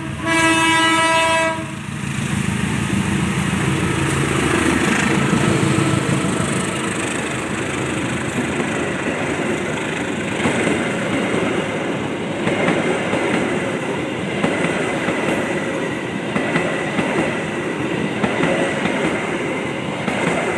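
Diesel locomotive BB 203's horn, a shrill, tinny blast that cuts off about a second and a half in. The passenger train then passes with steady loud rumble and wheels clacking over the rail joints.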